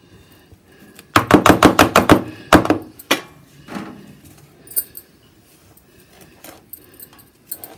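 A stainless steel plate knocking against the counter: a quick run of sharp knocks starting about a second in and lasting about a second and a half, then a few single knocks, as the burfi mixture in it is pressed level.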